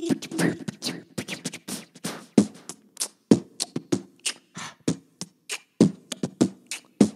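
Beatboxing: a quick string of vocal drum sounds, sharp hits and low thumps about three a second in an uneven rhythm.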